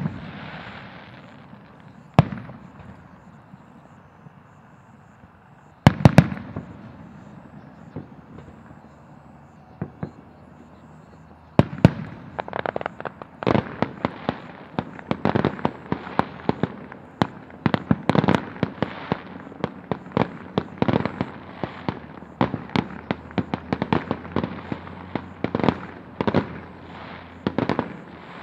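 Aerial fireworks: a handful of separate sharp bangs from shell bursts spaced a few seconds apart, then from about twelve seconds in a dense, fast string of many bangs and crackles that keeps up until near the end.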